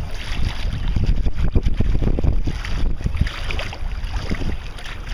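Legs wading through knee-deep floodwater, the water sloshing and splashing unevenly with each stride, with wind rumbling on the microphone.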